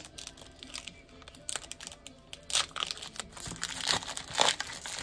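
Wrapper of a hockey card pack being torn open and crinkled by hand. It starts with a few scattered crackles and gets busier after about one and a half seconds.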